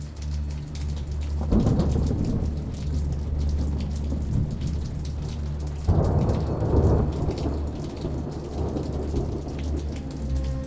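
Steady rainfall with two rolls of thunder, the first about a second and a half in and the second about six seconds in.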